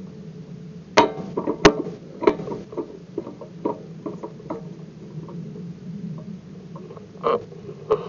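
Stationary ATV idling with a steady low hum, overlaid by irregular sharp clicks and knocks, the two loudest about a second and a second and a half in.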